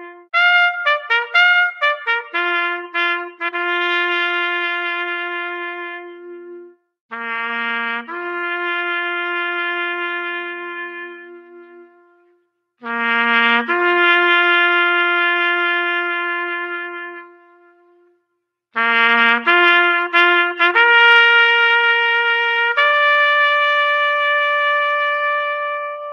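Solo trumpet playing a military bugle call. A quick flurry of short notes comes about a second in, then slower phrases of long held notes with short silences between them, ending on a high note held for several seconds.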